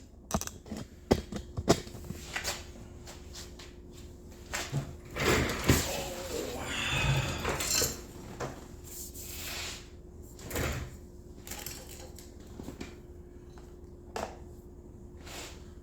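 Irregular clicks, knocks and rustles of a camera or phone mount being handled and repositioned, over a faint steady hum.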